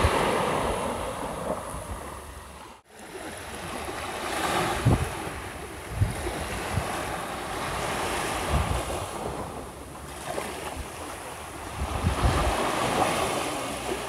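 Small waves washing up onto a sandy beach, the surf swelling and falling back every few seconds, with wind buffeting the microphone in low thumps. The sound drops out briefly about three seconds in.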